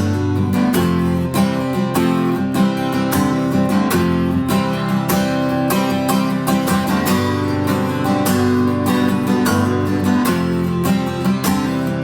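Instrumental passage of a song: acoustic guitar strummed in a steady rhythm, with no singing.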